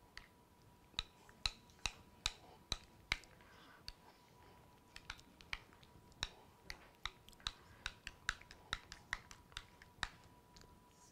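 A spoon clicking against a glass mixing bowl while stirring sour cream and sweetened condensed milk: quiet, irregular taps, about two to three a second.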